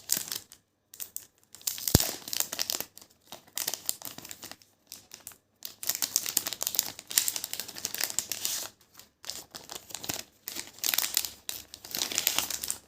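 Plastic packaging crinkling and tearing in repeated handling bursts as a trading-card pack is opened, with one sharp click about two seconds in.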